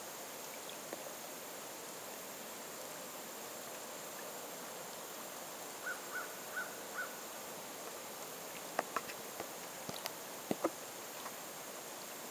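Small sharp plops and sips of fish taking food at the water's surface, a cluster of them near the end over a steady outdoor hiss. Midway come four short high chirps, evenly spaced.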